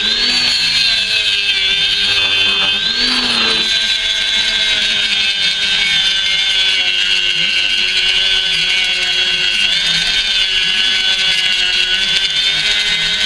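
Dremel rotary tool with a small sanding drum grinding metal rivets flush on a catapult's handle scales: a steady high whine whose pitch shifts as the drum is pressed onto the metal, near the start and again around three seconds in.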